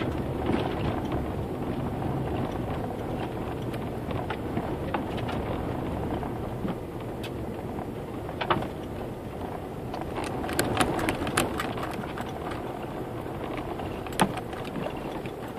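Vehicle driving along a narrow, bumpy road: steady engine and road rumble, with sharp rattles and knocks from bumps. The knocks bunch together about ten to twelve seconds in, and one stands out near the end.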